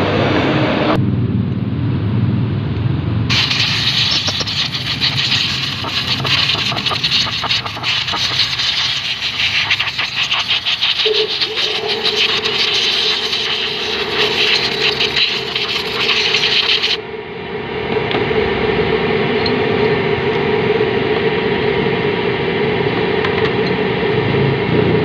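Stiff brush scrubbing and scraping scooter CVT parts (clutch shoes and pulley) in a tray of fuel, with a motor engine running in the background that rises briefly in pitch about eleven seconds in and then holds steady.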